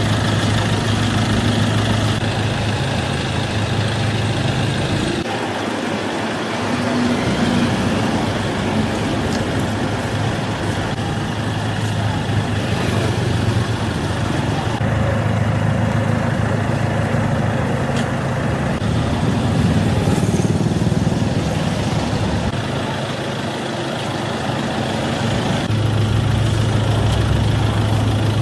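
Vehicle engine idling with road traffic passing, a steady low hum that cuts out and comes back abruptly several times.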